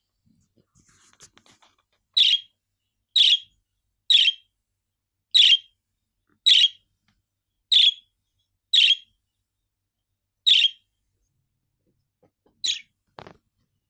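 Budgerigar giving short, sharp chirps, about one a second, nine in all with a pause before the last one near the end, followed by a faint knock.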